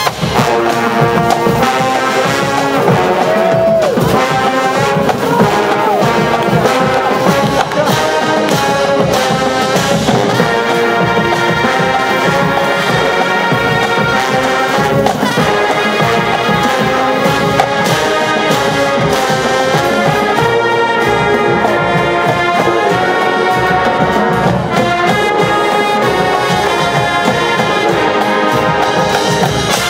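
Marching band playing loud brass music, trombones and trumpets over a steady drum beat.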